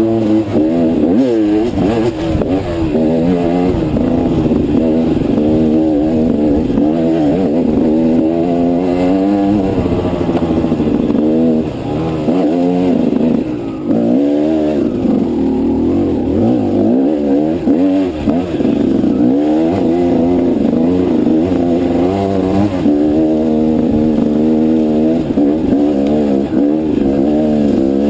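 Dirt bike engine under load on a steep, rocky climb. Its pitch keeps rising and falling as the throttle is worked, with two brief dips about halfway through where the throttle comes off.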